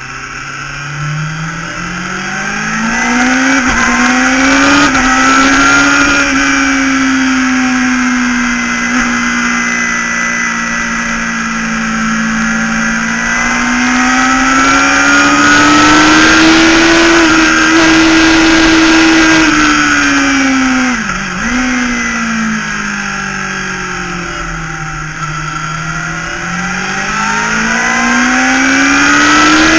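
Motorcycle engine at speed on a race track, heard from a camera mounted on the bike, its note climbing and falling with throttle and gear changes over a steady rush of wind. The pitch drops sharply and recovers about two-thirds of the way through.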